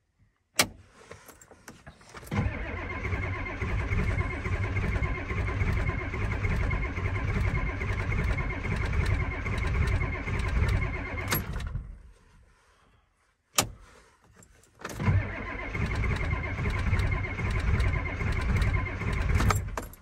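Ford 7.3 IDI V8 diesel cranking over on the starter in two tries, about nine seconds and then about five, without firing, with sharp clicks as the key is turned. It is a cold start with the glow plugs not working.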